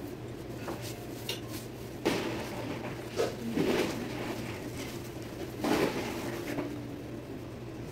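A sheet of paper rustling and crinkling in several short bursts as it is folded and pulled open into a paper boat, over a low steady hum.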